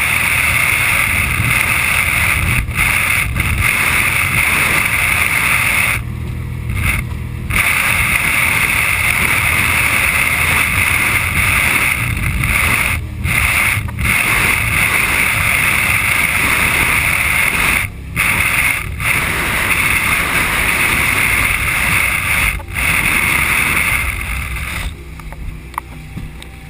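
Steady loud rush of wind and water on a boat under way. It drops out briefly several times and eases near the end.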